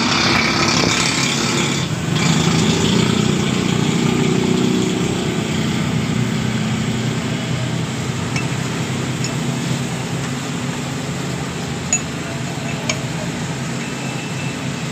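A steady engine drone, a little louder in the first few seconds, with a few light metallic clinks from a cast steering box being turned in a steel vise.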